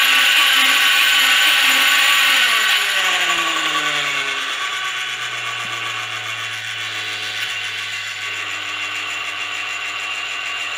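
Motor-and-generator flywheel rig running with a steady mechanical whir and rattle. About two and a half seconds in, its pitch falls and it quietens over a couple of seconds, then settles at a lower steady speed: the rig slowing under the load of a small bulb connected to the generator output.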